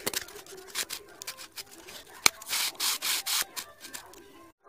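Corrugated cardboard pieces rubbing and scraping against each other as they are handled and fitted together by hand, with a sharp click a little past two seconds in and then three quick scraping strokes. The sound cuts off abruptly near the end.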